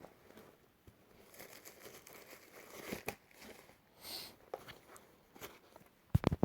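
Soft crinkling and rustling handling sounds with scattered small clicks, a short hiss about four seconds in, and a few low thumps near the end, the loudest sounds.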